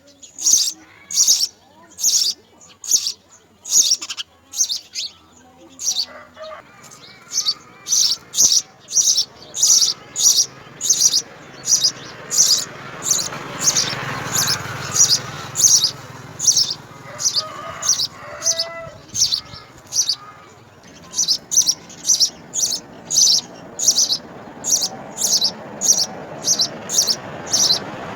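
House sparrow chirping over and over, about two short high chirps a second, with a brief pause about two-thirds of the way through.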